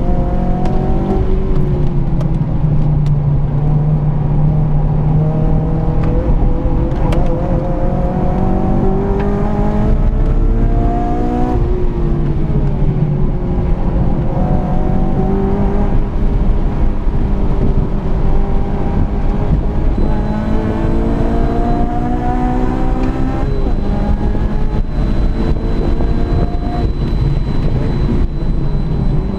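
Honda Civic FG2 coupe's engine heard from inside the cabin during a hot lap. It revs up again and again, its pitch climbing and then dropping back at each gear change or lift off the throttle, before it picks up again.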